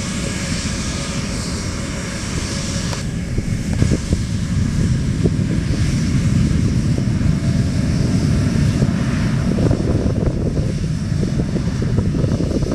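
Jet airliner engines running on the airfield: a steady, mostly low-pitched noise that carries on throughout.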